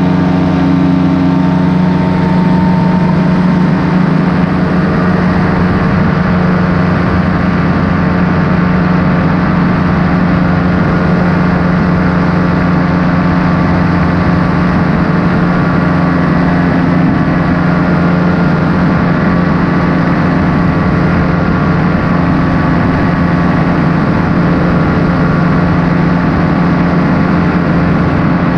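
Paramotor engine and propeller running at a steady throttle in flight, one unchanging pitch.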